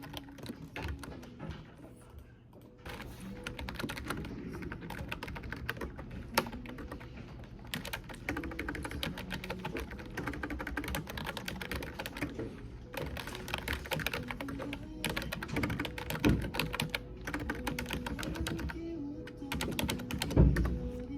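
Typing on a computer keyboard: a dense, quick run of key clicks that picks up about three seconds in, with a single low thump near the end.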